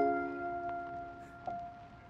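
Background music: a sustained chord sounds at the start and holds, fading slowly, with a small change about one and a half seconds in.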